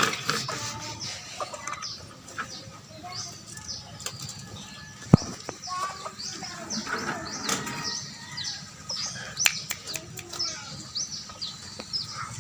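Raptor chicks giving short, high-pitched, falling begging calls over and over as they are fed, with a sharp click about five seconds in.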